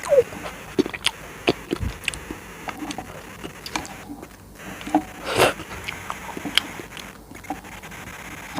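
Close-miked mouth sounds of eating soft sweets: irregular wet clicks, squelches and chewing, with one louder, longer slurp-like burst about five seconds in.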